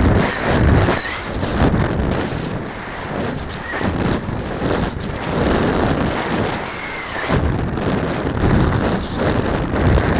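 Wind rushing over the microphone of a camera riding on a high-power rocket as it falls under its drogue parachute. It comes in uneven gusts every second or two, with scattered clicks and knocks.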